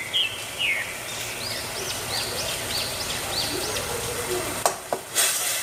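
A bird calling repeatedly in the background, a quick run of short high arched chirps at about three a second. Near the end come a sharp click and a brief burst of hiss.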